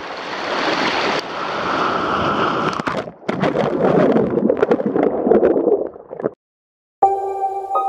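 Sea surf breaking and washing over rocks close up, a loud rushing hiss. About three seconds in it gives way to duller, bubbling churning heard underwater, which cuts off about six seconds in; after a short gap ambient music with steady held tones begins near the end.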